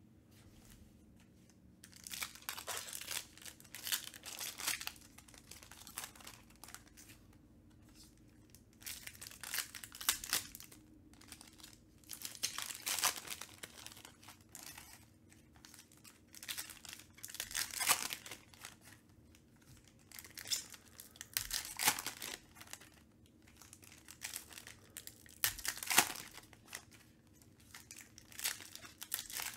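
Foil trading-card pack wrappers crinkling and tearing as they are ripped open by hand, in repeated bursts starting about two seconds in.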